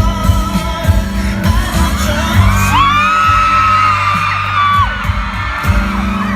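Pop song with singing over a steady beat; in the middle, a crowd of fans screams in high, held voices for about two seconds.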